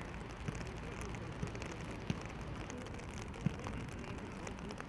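Steady outdoor background noise with a few short, sharp thumps scattered through it.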